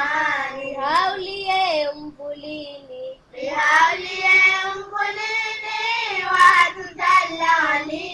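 A child singing a Ramadan devotional song in long, melodic phrases, with a softer, thinner passage about two to three seconds in before full phrases resume.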